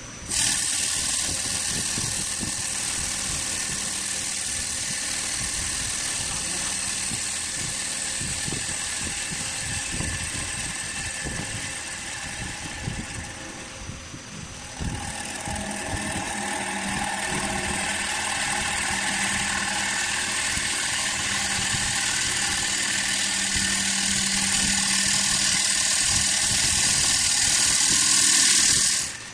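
CNC wood lathe's cutting tool facing a spinning wooden disc: a loud, steady hiss of wood being cut that starts suddenly, eases off briefly about halfway, then builds again and stops abruptly near the end.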